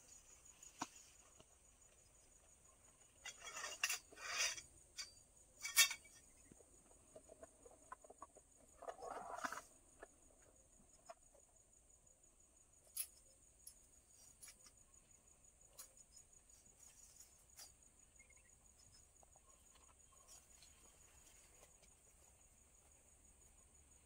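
Steady high-pitched insect chorus, with a few bursts of clicking and clattering handling noises about three to six seconds in and again around nine seconds.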